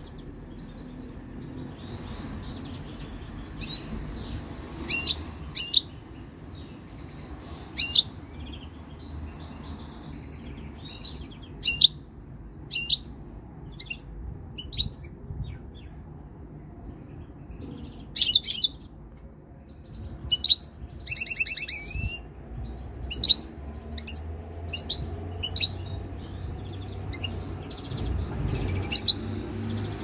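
European goldfinch singing: a broken run of short, high twittering chirps and trills with scattered louder notes. The bird is coming into song as it comes into breeding condition. A low steady rumble runs underneath and grows near the end.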